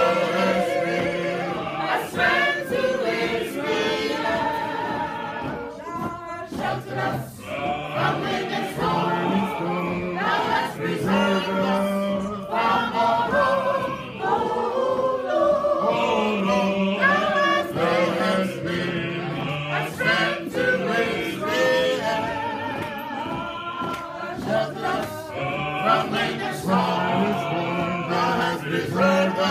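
Gospel choir singing a processional march song, with sharp, regular beats under the voices.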